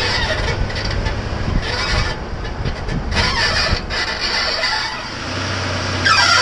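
Squeaking from a 1998 Toyota 4Runner: a high squeak that comes and goes every second or so over a low running hum, one squeak near the end sliding down and back up in pitch. The owner does not know what causes it.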